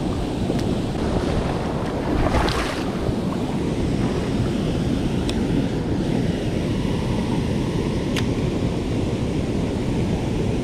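Steady rushing of flowing creek water, with a brief louder swish about two and a half seconds in.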